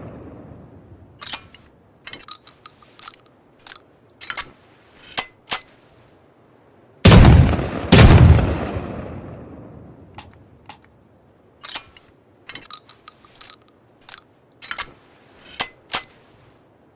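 Double-barrel shotgun sound effect: two loud shots about a second apart near the middle, each fading out over a few seconds. Before and after them come a run of short sharp metallic clicks and clacks of the gun being handled.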